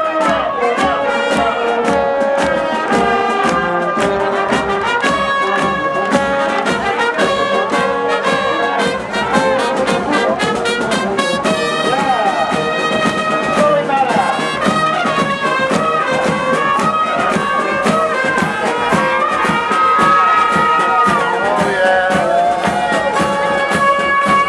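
A brass band playing a melody of held notes, steady and loud throughout.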